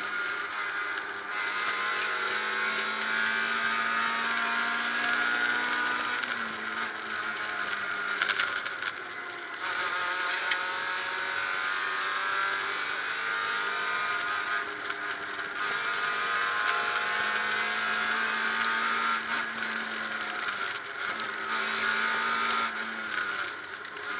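Peugeot 306 rally car engine at full stage pace, heard from inside the cabin. The revs climb and drop again and again through gear changes and lifts, over steady road and tyre noise.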